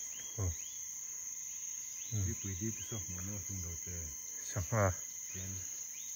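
Insects keep up a steady high-pitched drone, with short rising chirps repeating about twice a second in spells. Low murmured voices come through several times, loudest near the five-second mark.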